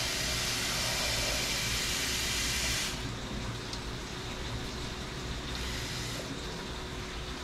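Kitchen tap running water into a stainless steel saucepan holding eggs, filling it. The rush is brightest for the first three seconds, then softens to a gentler flow.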